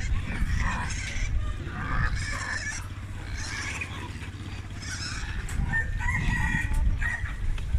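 Live piglets squealing repeatedly and shrilly as a seller reaches into their wire cage and handles them.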